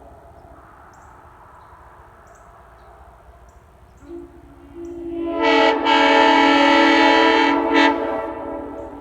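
Nathan Airchime M3 three-chime train horn with a scalloped base, blown once. Its lowest note sounds first, and about a second later the full chord comes in, held loud for about three seconds before it cuts off and fades with a short echo.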